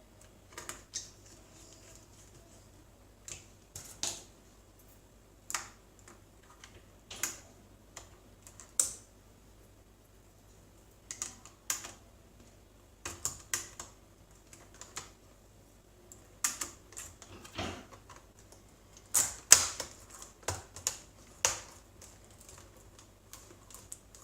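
Irregular sharp plastic clicks and taps from a Toshiba Satellite A350 laptop being handled during reassembly after a keyboard replacement. The clicks come singly and in quick clusters, a couple of dozen in all.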